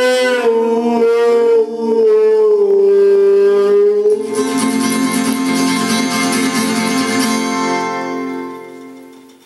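The end of a song: a male voice holds a long final note that slides down in pitch over guitar accompaniment, then the closing chord rings on and fades out near the end.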